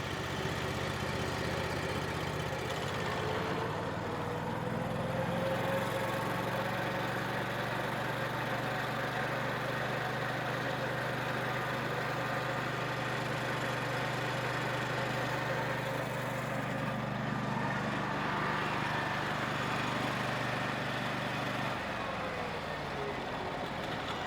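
Vintage sawmill engine running at raised speed. A rising whine over the first few seconds as the clutch engages and spins up the blade flywheel, holding steady, then near the end the engine drops back and the whine falls as the clutch lets go.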